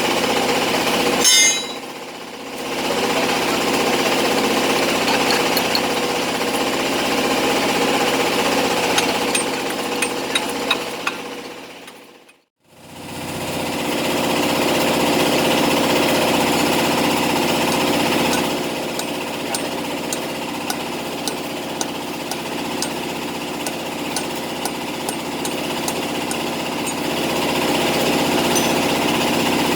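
An engine running steadily, with small clicks over it. It drops away briefly about two seconds in, and cuts to near silence about twelve seconds in before coming back.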